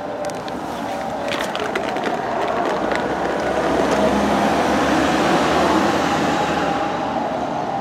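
Street traffic noise, steady, swelling about halfway through as a vehicle passes.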